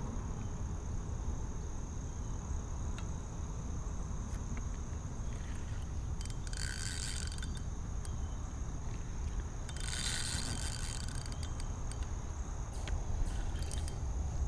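Spinning reel's drag slipping and paying out line in two short runs of about a second each as a hooked carp pulls. Under it runs a steady high chirring of crickets.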